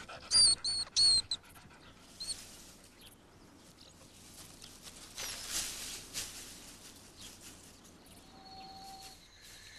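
A red fox panting, with a run of short, high, thin squeaks in the first couple of seconds, the squeaking of baby harvest mice in their nest. About five seconds in there is a brief soft rustle.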